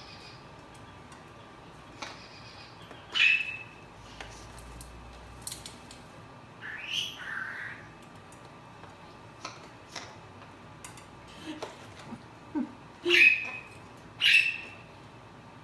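Blue-fronted Amazon parrot giving several short calls spread out with pauses between, the two loudest near the end about a second apart. A few faint clicks fall between the calls.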